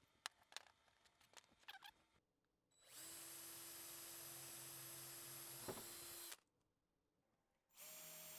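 DeWalt cordless drill running as it bores through two clamped plywood templates: a few light clicks at first, then a steady whirring run of about three seconds that stops abruptly, and a second, shorter run at a higher pitch near the end.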